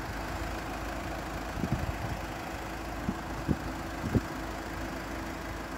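Road vehicles idling steadily at the crossing, a low engine hum, with a few soft knocks from the tablet being handled near its microphone.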